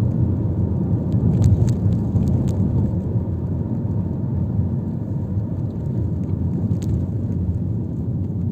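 Steady low rumble of a moving bus's engine and road noise heard from inside, with a few light clicks or rattles.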